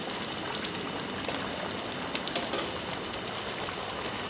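Rice and chicken pulao boiling in its cooking water in an aluminium pot: a steady bubbling crackle as the water boils down into the rice before the pot goes on dum. A few light clicks, about two seconds in, from the slotted steel skimmer being moved in the pot.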